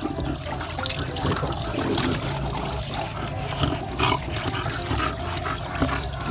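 Water from a garden hose spraying onto a puppy and splashing in a plastic tub of water, with a large dog panting heavily after running.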